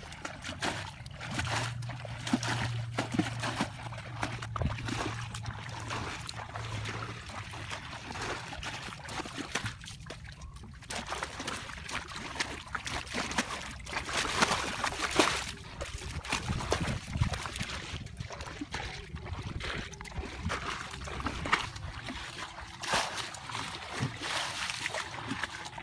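Plastic buckets scooping muddy water out of a shallow ditch and flinging it aside, in a run of irregular splashes and sloshes.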